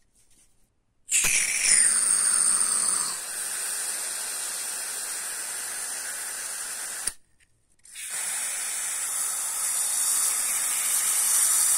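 Aerosol can of silicone lubricant spraying in two long bursts into a bicycle's freewheel ratchet. The first burst opens with a brief falling tone and then settles to a steady hiss; the second is a steady hiss.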